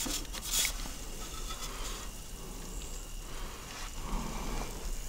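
Quiet steady hiss with a brief metallic scrape about half a second in, as a round metal pizza peel slides under the pizza on the oven's stone and draws it out.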